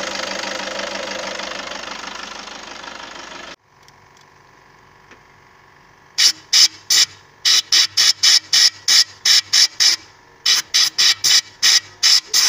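Toyota 2KD-FTV four-cylinder turbodiesel idling with its diesel clatter, cutting off suddenly about three and a half seconds in. From about six seconds a hand-pumped oil can squirts fluid into the oil filler, giving a rapid run of short high squeaks, about four a second, with a brief pause near ten seconds.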